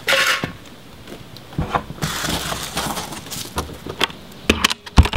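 A door being swung shut over a newly fitted aluminium threshold with a rubber seal: a brushing, scraping sound, then a few sharp knocks, the loudest near the end as the door closes.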